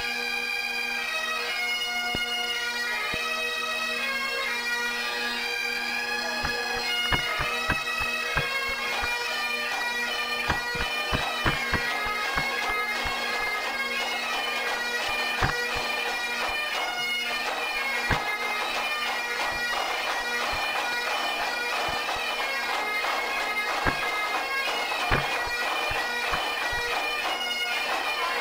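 Great Highland bagpipes of a pipes and drums band playing a tune over a steady drone. Drum strokes join in about seven seconds in.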